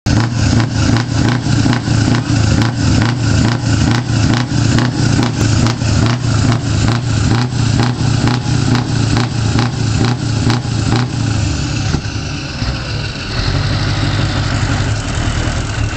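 Big truck engine running loud from its side exhaust with an even, lumpy pulse of about three to four beats a second. About eleven seconds in, the pulse stops and the engine settles into a steadier idle.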